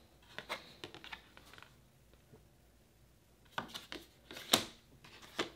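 Printed cards and papers being handled and put down: light rustling and a few soft clicks in two short spells, the loudest just past the middle of the second spell.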